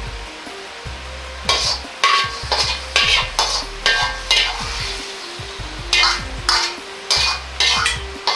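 Metal ladle scraping and tossing stir-fried meat and vegetables in a Chinese wok as they sizzle over high heat. The strokes come quickly, about two a second, with a short break midway.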